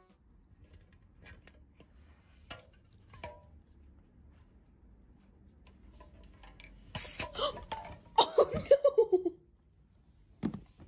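A few faint taps, then a sharp clatter about seven seconds in, followed by a person laughing in a run of short bursts that fall in pitch.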